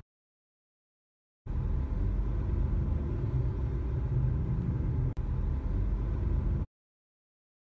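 A steady low rumble of background noise picked up by a phone's microphone, starting after a second and a half of silence and cutting off abruptly about a second before the end, with one faint click about five seconds in.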